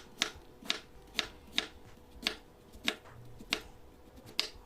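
Knife slicing gourds into rounds, with about eight sharp chops against the board at a steady pace of roughly two a second.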